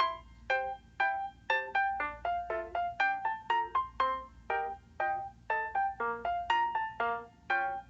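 Background music: a light melody of short keyboard-like notes, each struck and fading away, a few notes a second.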